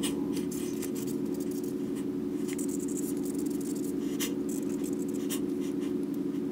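Pen scratching on paper on a clipboard in short, irregular strokes as a graph is drawn, over a steady low hum.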